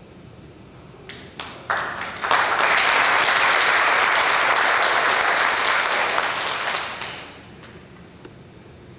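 Congregation applauding: a few scattered claps about a second in build into full applause, which holds for several seconds and then dies away.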